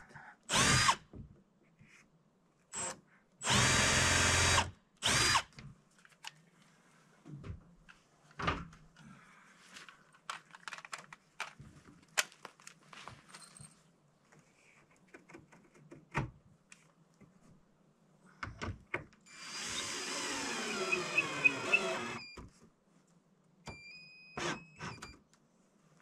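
Power drill driving screws in separate runs: a brief burst at the start, a run of about a second around four seconds in with a short one just after, and a run of about three seconds around twenty seconds in whose pitch falls. Light clicks and knocks come between the runs.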